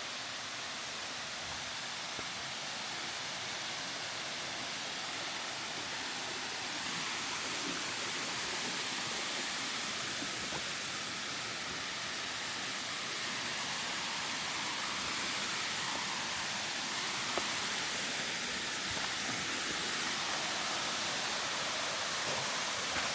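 Waterfall: a steady rush of falling water, getting a little louder about seven seconds in.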